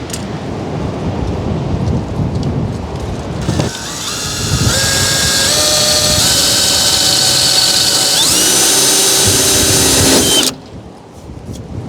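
Power drill boring a hole into the front of the RV to mount a turn-signal light bar. After a few seconds of low noise the drill starts and runs for about seven seconds, its motor whine stepping up and down in pitch as the speed changes, then stops abruptly near the end.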